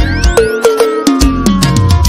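Pisadinha band music without vocals: electronic keyboard with rising and falling synth sweeps and a bass line stepping down, over a steady kick drum beat.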